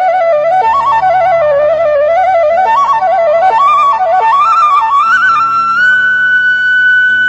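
Flute playing an ornamented melody that steps up and down and then climbs to a long held high note near the end, over a low sustained accompaniment.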